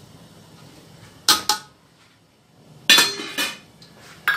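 Metal utensils clanking against a metal cooking pot: two sharp knocks about a second in, a longer clatter about three seconds in, and another knock near the end.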